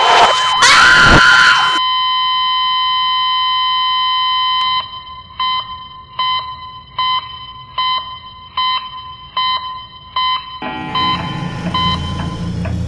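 Electronic alarm tone: a loud noisy burst cuts off about two seconds in, leaving a steady high chord-like tone. After a few seconds the tone turns into regular beeps about every three-quarters of a second. Near the end low music comes in under it.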